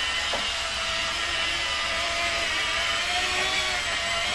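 Steady whir of a 1:14 scale RC semi-truck's drive motor and gearing as the truck drives along pulling a dump trailer, its whine wavering slightly in pitch.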